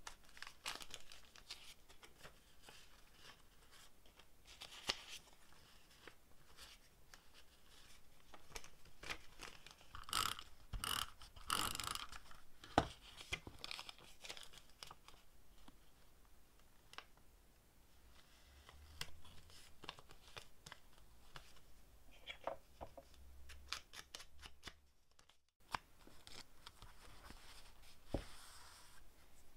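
Paper rustling and crinkling as paper cutouts and a paper lace doily are handled and pressed onto a journal page, with many small taps and clicks. The rustling is densest about ten to twelve seconds in, and the sound drops out briefly near twenty-five seconds.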